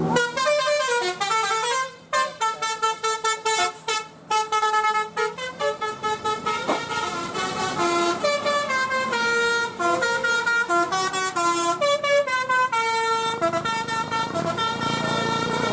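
Bus telolet horn, a multi-tone musical air horn, playing a melody. The notes step up and down, short and choppy for the first several seconds, then held longer.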